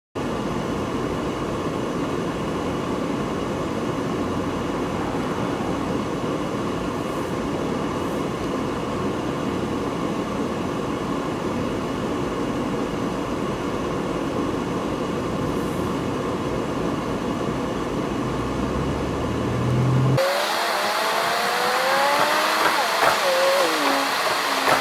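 Steady road and engine noise heard from inside a moving car in traffic. About twenty seconds in it cuts abruptly to a different recording with a thinner, brighter rush and some rising and falling tones.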